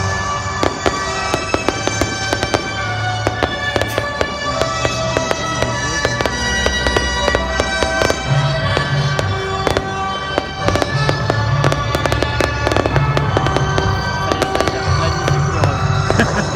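Fireworks going off in quick, dense succession, many sharp bangs and crackles, over music playing throughout.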